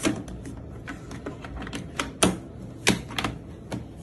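Irregular clicks and taps of hands working the Redragon Brahma K586 mechanical keyboard, with a couple of louder clacks about two and three seconds in.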